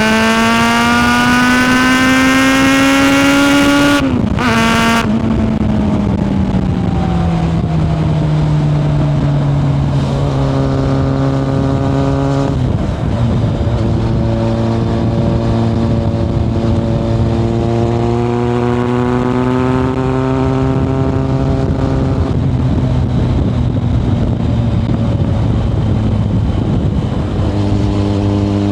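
Kawasaki ZRX1100 inline-four engine through a Yoshimura exhaust, heard from onboard while riding. It climbs in pitch under acceleration for the first four seconds, then steps down sharply at a gear change. The revs fall away over the next few seconds, then settle into steady cruising with another step down and a few gentle rises and dips.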